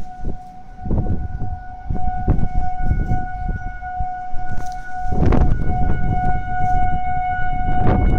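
Outdoor tornado warning siren sounding one steady, unwavering tone. Gusts of wind buffet the microphone throughout, heaviest from about five seconds in.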